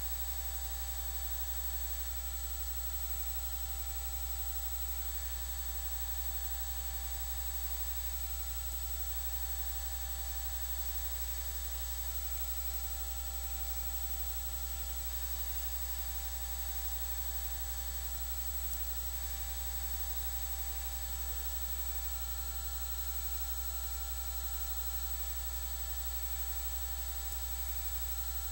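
Steady electrical hum with hiss, unchanging throughout: mains hum in the recording rather than any sound from the arena.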